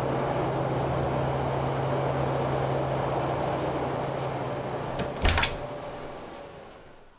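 A train passing: a rumble with a steady low hum swells up, a short burst of sharp metallic clanks comes about five seconds in, then the sound fades away.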